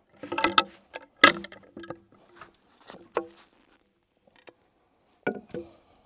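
Long-handled bark-peeling tool striking and prying at the bark of a log: a string of sharp, irregular knocks, each with a short ring, the loudest about a second in and another cluster near the end.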